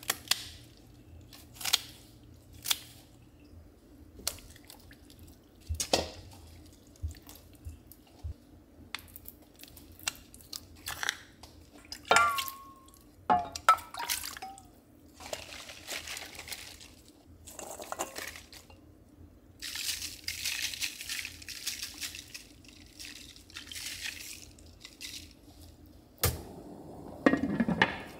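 Kitchen cooking sounds in a wok: kitchen scissors snip kimchi and utensils clink, then water is poured into the pan, and a glass lid is set on near the end.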